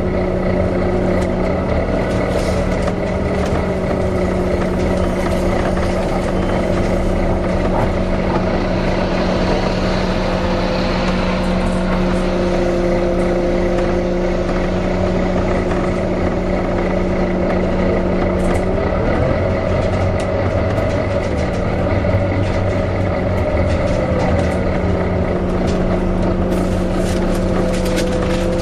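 Volvo B9TL double-decker bus's engine running, with its cooling fan whining over it, the 'hoover' sound. The whine's pitch rises and falls slowly several times as the fan speeds up and slows down.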